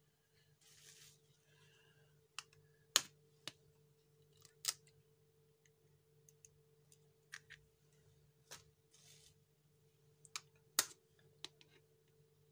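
Eggs being tapped and cracked on the rim of a glass bowl: a scattered series of sharp clicks and taps, a few of them loud, over a faint steady hum.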